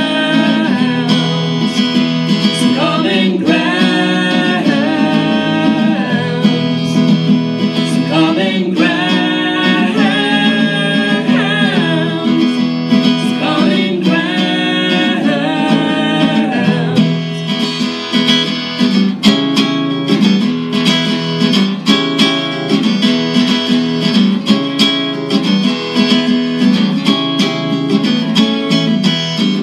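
A woman singing live with an acoustic guitar strummed beside her. In the second half the strumming comes forward in quick, sharp strokes.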